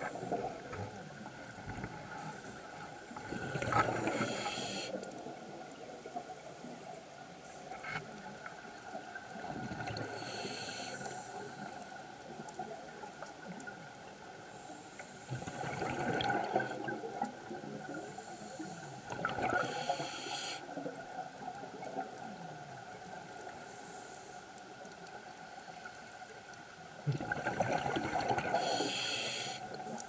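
Scuba diver's regulator underwater: exhaled air bubbling out in bursts every few seconds, over a faint steady tone.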